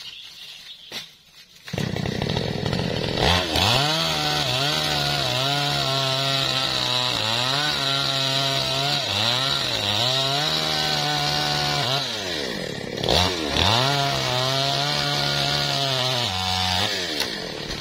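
MAESTRO mini chainsaw's engine starts up about two seconds in and cuts into a teak trunk. Its pitch sags repeatedly as the chain bites into the wood and climbs again between cuts. The engine drops back and dies away near the end.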